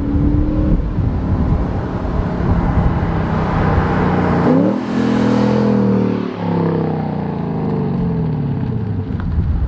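Lexus RC F's V8 through a Fi Exhaust valvetronic catback, accelerating hard in a flyby. The note climbs as the car approaches, breaks briefly twice as it goes by, then falls away as the car drives off.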